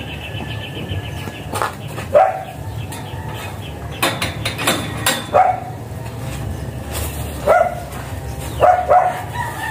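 A guard dog barking: a few single barks spaced a few seconds apart, two in quick succession near the end, with a few light metallic clicks from a chain-link gate being opened.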